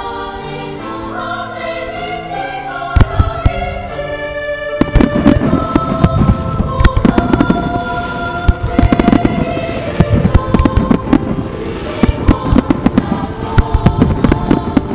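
Aerial firework shells bursting in a fast volley of sharp bangs and crackles, starting about three seconds in and becoming dense from about five seconds, over music with long held notes that plays throughout: a music-synchronised starmine.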